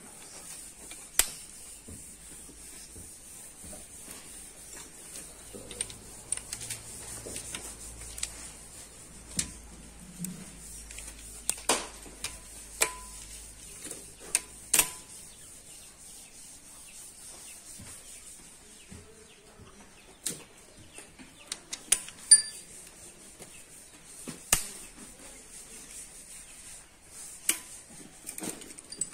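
Scattered, irregular metallic clinks and taps as a socket wrench with a torque-angle gauge is set onto and worked on the cylinder head bolts, with quiet stretches between. The loudest clink comes about two-thirds of the way through.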